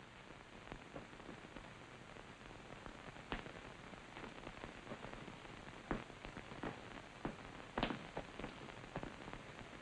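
Faint scattered clicks and a few soft knocks over a low, steady hiss.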